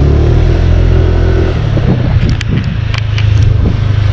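Motor scooter engine running steadily while riding, with a few sharp clicks between about two and a half and three and a half seconds in.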